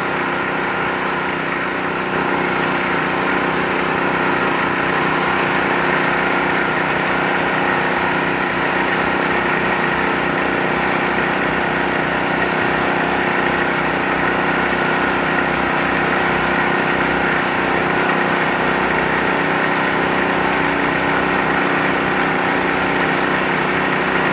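Small engine of a borehole well-drilling machine running steadily at a constant speed.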